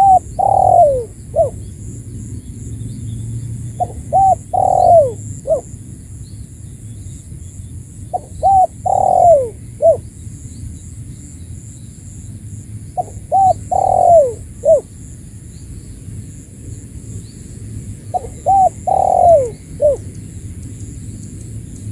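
Spotted dove (tekukur) cooing its lure call: five repeated phrases, about one every four to five seconds, each a couple of short notes, a long falling coo and a short closing note. This is the pikat call used to draw rival doves in.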